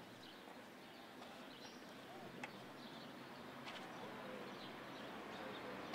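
Quiet street ambience: faint birds chirping over a low background of distant traffic, with one sharp click about two and a half seconds in.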